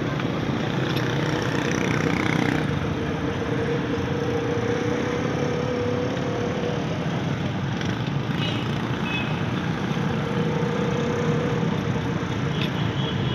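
A motor vehicle's engine running steadily, with a constant hum and a steady rumble of traffic noise.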